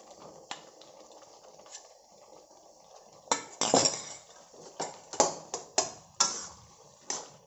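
A few light clicks as cooked rice is tipped from a steel bowl into a metal pan, then, from about three seconds in, a run of sharp scrapes and knocks of a metal spatula against the pan as the rice is mixed into the spinach purée.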